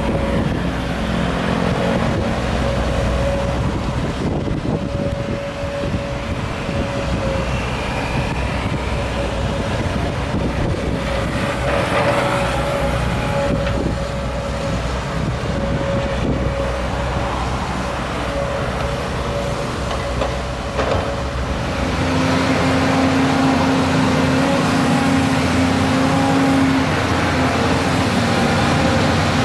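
Volvo EC210 excavator at work, its diesel engine running under load with a steady hydraulic whine and a few knocks. About two-thirds of the way in, the sound shifts to a louder, lower hum.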